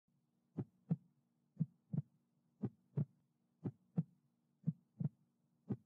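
Heartbeat sound: paired lub-dub thumps, about one pair a second, over a faint steady hum.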